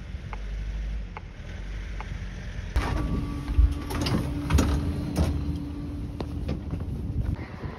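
Tram sliding doors operating: a steady warning tone sounds for about four seconds, starting about three seconds in, while the door mechanism clunks and knocks over the low rumble of the tram.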